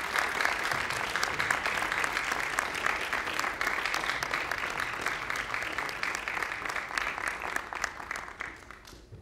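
Audience applauding: many hands clapping together, holding steady and then dying away near the end.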